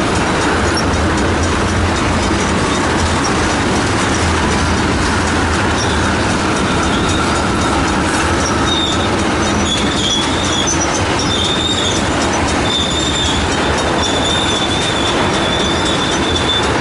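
Freight train of tank cars rolling past: a steady rumble and clatter of steel wheels on the rails. From about halfway through a high wheel squeal wavers in and out, then holds near the end.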